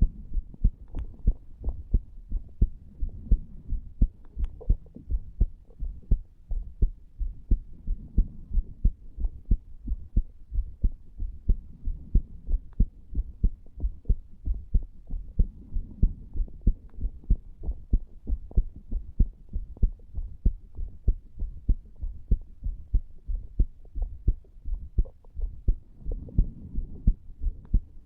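Human heartbeat heard through a chest recording at the tricuspid valve area, beating steadily and evenly without a break. It is the heart of a man under the influence of nicotine from a cigar.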